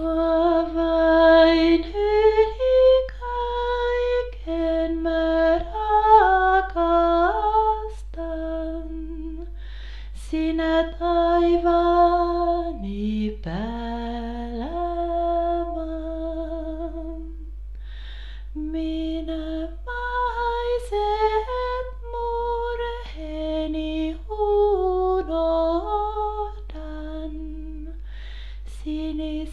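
A woman singing a slow song solo, without accompaniment, in long held phrases with short pauses between them. A steady low hum runs underneath.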